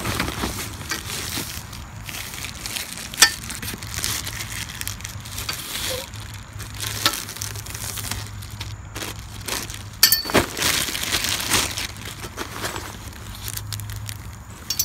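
Plastic wrapping crinkling and rustling as a golf practice net's frame poles and fabric are unpacked by hand, with a few sharp clicks of the poles knocking together: one about three seconds in and a cluster about ten seconds in.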